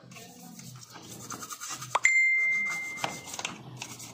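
A brush scrubbing the plastic housing of a Honda Civic EG instrument cluster in short, quick strokes. About two seconds in, a single loud bell-like ding cuts in and rings for about a second as it fades.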